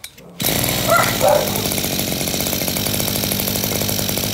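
Tanaka 27cc two-stroke brushcutter engine, bored out to 35 mm and fitted with an aftermarket IC ignition, fires up about half a second in and keeps running steadily.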